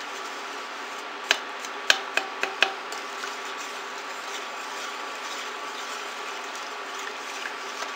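A plastic spatula stirring wet borax powder in a stainless steel pot, knocking against the pot's side five times in quick succession between about one and three seconds in. Under it runs the steady hum of the running induction cooker.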